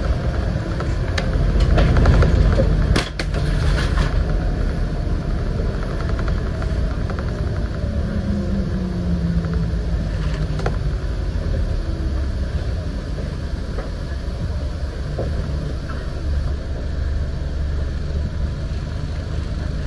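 On-board sound of a Scania N94UD double-decker bus with East Lancs OmniDekka body on the move: a steady low rumble of the diesel engine and road noise. A few sharp rattles or clicks come in the first four seconds, and the engine note falls away about eight to ten seconds in.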